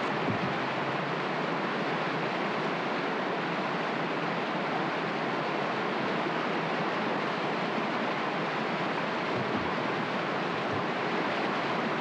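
Whitewater of river rapids rushing steadily, an even, unbroken hiss of churning water.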